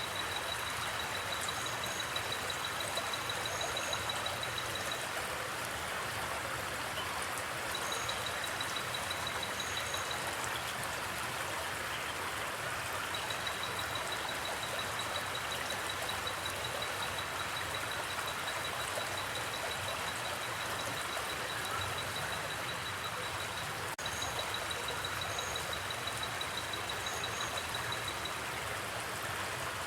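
River or stream running steadily, with crickets chirping in fast pulsed trills that run for several seconds, pause and start again. A few short, higher double chirps sound now and then.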